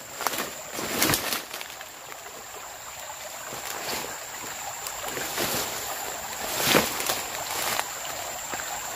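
Leaves and undergrowth rustling as a dog and a person push through them, with a few sharper crackles, one about a second in and a louder one near the seventh second.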